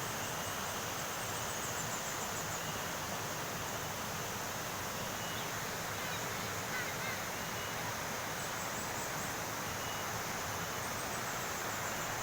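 Steady rush of falling water from a waterfall, with insects chirring high above it and a few short chirps.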